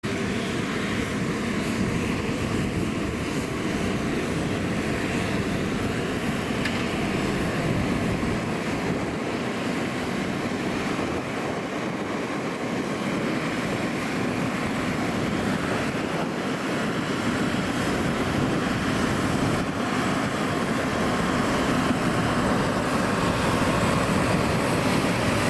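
Steady aircraft turbine engine noise, a constant rush with no clear tone, growing a little louder near the end.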